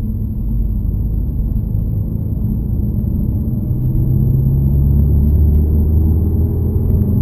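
Peugeot 308 GTi's 1.6-litre turbocharged four-cylinder engine pulling from low revs in fifth gear under acceleration, heard from inside the cabin: a low rumble rising slowly in pitch as the speed builds.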